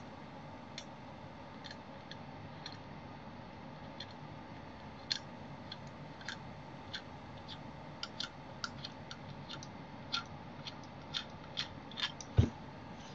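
Small sharp clicks and ticks of a metal microphone thread adapter being worked loose and unscrewed by hand, a few at first and coming more often in the second half, with one louder knock near the end.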